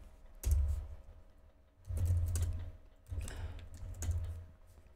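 Computer keyboard typing in a few short bursts of key clicks with dull thumps.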